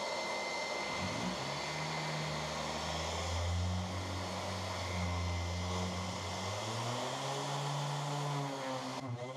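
Random orbital sander running on a plywood sheet, a steady motor whir with a thin high whine, its low hum shifting in pitch a few times as it is pressed and moved.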